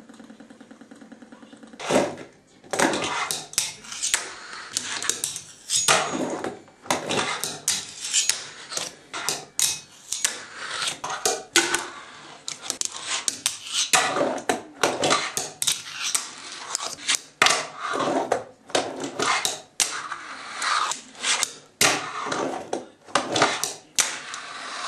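Fingerboard being ridden on a wooden ramp setup: wheels rolling over the wood, broken by frequent sharp clacks of the deck popping, landing and hitting the ramps. A faint steady buzz comes before the first clack, about two seconds in.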